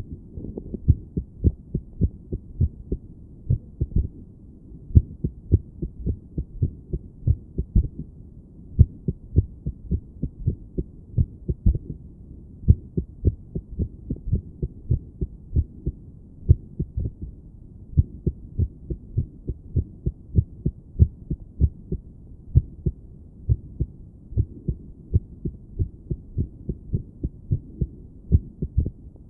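A woman's heartbeat heard through a stethoscope on the chest: short, dull thumps in an uneven, irregular rhythm, the sign of an irregular heartbeat.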